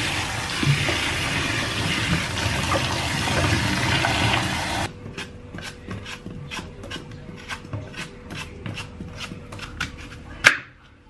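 Tap water running onto kale leaves in a plastic basin. It cuts off and gives way to short, irregular scraping strokes, two or three a second, as an apple is peeled. Near the end comes one sharp knock as a knife cuts through the apple onto a wooden chopping board.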